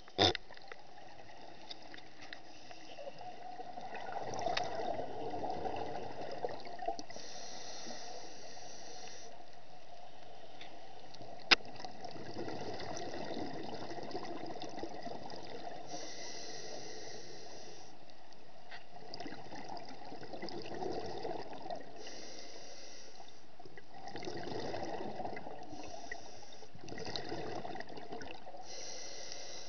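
Scuba regulator breathing heard underwater: a high hiss on each inhalation every several seconds, alternating with the bubbling of exhaled air. A single sharp click comes about eleven seconds in.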